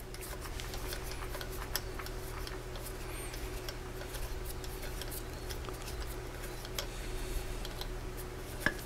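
Faint, irregular light clicks of a steel tap being turned by hand out of a freshly threaded hole in an aluminium bar, over a steady low hum.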